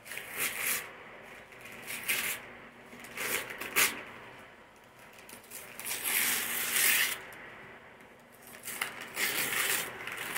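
Wrapping paper being torn and crinkled as a child unwraps a present, in a series of short rips with one longer tear about six seconds in.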